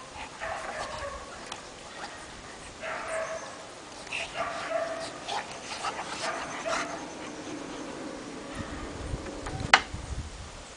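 Kuvasz dogs at play, giving short whimpers and yips, several in a row, with scattered small clicks and one sharp click near the end.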